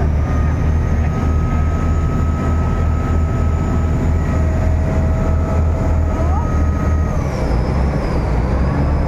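A passenger river boat's engine runs steadily under way with a loud, low drone, and water rushes along the hull beneath it. A faint steady whine sits above the drone.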